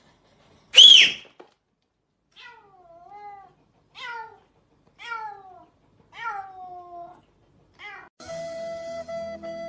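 A cat gives one sharp, very high cry, then a run of about six meows, each sliding down in pitch. Music with a flute comes in near the end.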